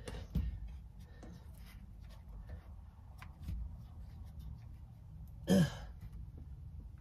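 Scattered small knocks and clicks of hands handling things at the rafters, over a low rumble, with one short, loud, breathy sound from the worker about five and a half seconds in.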